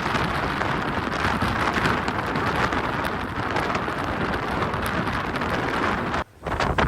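Strong blizzard wind rushing and buffeting over the microphone in a steady loud roar. It cuts off abruptly about six seconds in, then comes back as a couple of short gusts.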